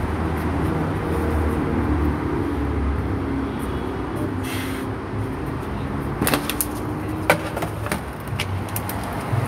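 Steady low rumble of street traffic, with a scatter of sharp clicks and clatters in the second half.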